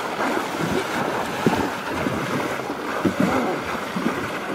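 A person running through shallow river water, each stride splashing loudly, over a steady rush of churned water.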